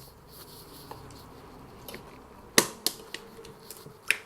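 Eating at the microphone: soft chewing, then a few sharp clicks, the loudest about two and a half seconds in, from crunching food or a utensil on the plate.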